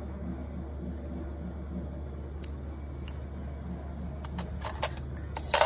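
A few faint clicks of stainless cuticle nippers working at a toenail, then sharp metallic clinks near the end, the loudest just before it ends, as metal nail tools are handled in a steel tray. A steady low hum runs underneath.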